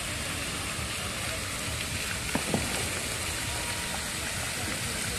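Fountain jets splashing back into a pond, a steady rain-like hiss of falling water. Two brief clicks come about two and a half seconds in.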